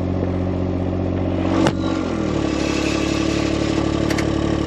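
An engine running at a steady speed. There is a sharp click about a second and a half in, and the engine note drops slightly about two seconds in.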